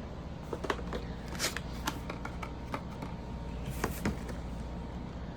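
Hands handling toy boxes and packaging: scattered light clicks and rustles, the loudest near the middle, over a steady low background hum.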